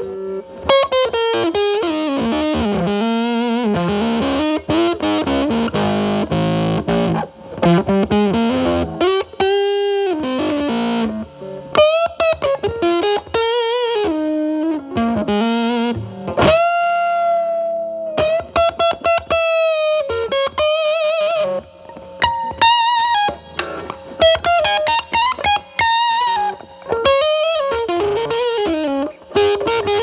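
Telecaster played through a ZVEX Fuzz Factory Vexter fuzz pedal, set Fuzz Face-style and cleaned up, into a Marshall Valvestate amp's drive channel. It plays single-note lead lines with string bends and vibrato, with one long held, bent note a little past the middle.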